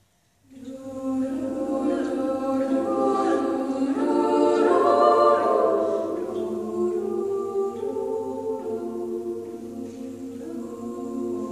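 Choir of young women's voices singing a slow song in harmony, coming in about half a second in after silence, swelling to its loudest around the middle and then easing off.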